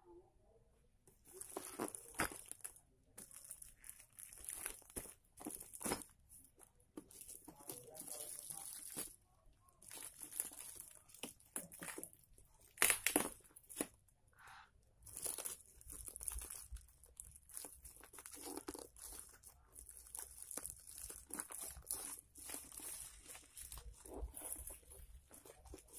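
Plastic packaging torn and crumpled by hand: clear plastic wrap and a white plastic sack crinkling and ripping in irregular bursts, starting about a second in, with one sharper, louder rip about halfway through.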